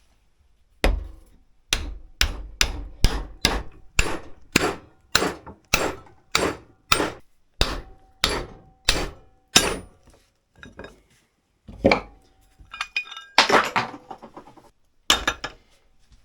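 Hammer blows on an axe during a handle replacement, a quick steady series of about two strikes a second for some nine seconds, then a few scattered strikes with a light ringing near the end.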